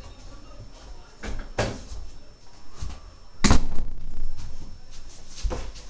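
Plastic Lego bricks clacking and knocking as they are handled: a handful of separate sharp clicks, the loudest a little past halfway through.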